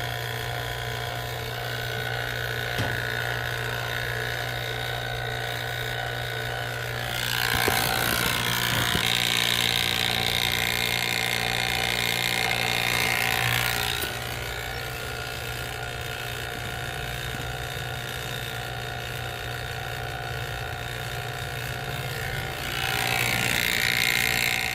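HVAC vacuum pump running with a steady hum while evacuating an air-conditioning system's line set through one hose, deep into the vacuum at a few hundred microns. A louder noise swells over it for several seconds about a third of the way in, and again briefly near the end.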